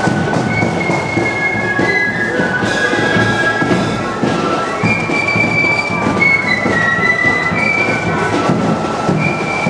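Marching flute band playing a tune: shrill flutes holding high notes that step from one pitch to the next, with drums beating beneath.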